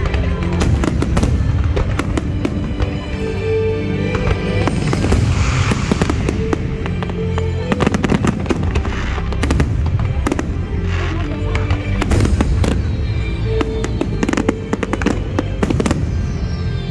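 Fireworks display: aerial shells bursting in quick succession, with many sharp bangs and crackling, over music playing with held notes.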